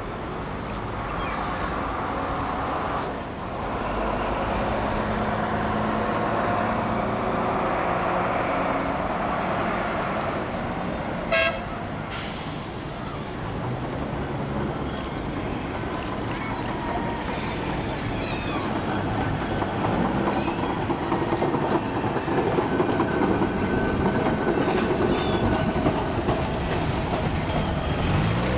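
Blackpool Balloon double-deck tram running along the street tracks toward the listener, its motors and wheels on the rails getting louder as it comes close near the end, with a dumper truck's diesel engine running behind it. A short horn toot sounds about eleven seconds in.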